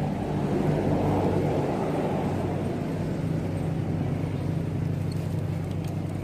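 A motor engine running steadily with a low hum. Its noise swells about a second in and then settles. A short sharp click comes right at the end.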